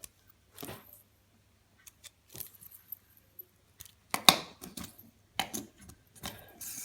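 Fidget spinner being handled: small hard parts clicking and rattling in irregular short bursts with quiet gaps between them, the loudest click about four seconds in.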